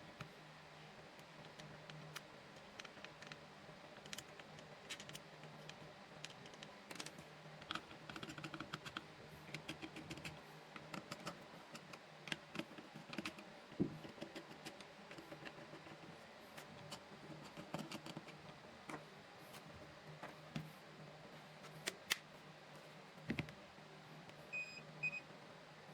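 Irregular light clicks and taps, like small plastic parts and tools being handled on a workbench, over a steady low hum. Two short electronic beeps near the end.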